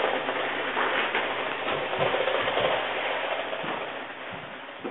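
LEGO Power Functions motors and plastic gear trains of the LEGO 8275 Bulldozers running, a steady grinding whir with a few faint knocks, fading out.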